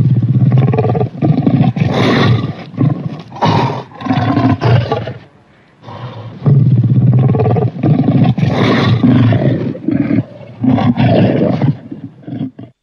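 Godzilla-style monster roar sound effect: two long, rough, low-pitched roars with a short lull between them about five and a half seconds in, cutting off abruptly near the end.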